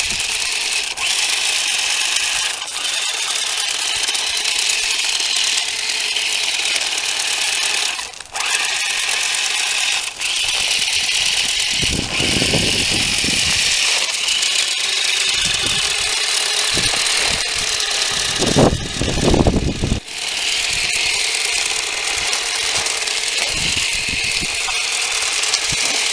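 Sharper Image Thunder Thrasher RC truck running, its small battery-powered electric motor and gears giving a steady high whir. A couple of brief low rumbles come about halfway and two-thirds of the way through.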